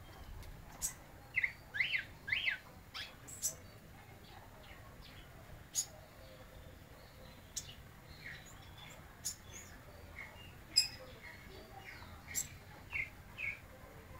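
Zorzal blanco thrush singing a little: scattered short whistled notes and sharp chips with pauses between them, and a quick run of gliding notes about two seconds in.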